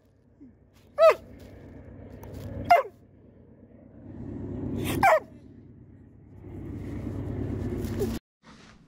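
Young long-haired Weimaraner vocalizing: three short yelps that slide down in pitch, between stretches of low grumbling that build in loudness.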